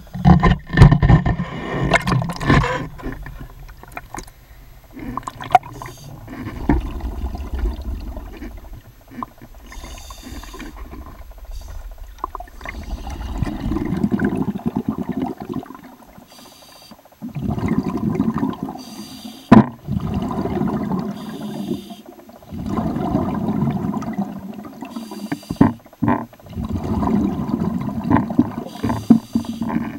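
Water splashing as the camera goes under, then muffled underwater sloshing and knocks heard through the camera's waterproof housing. The sloshing comes in swells every few seconds, with short hissy bursts and a few sharp knocks between them.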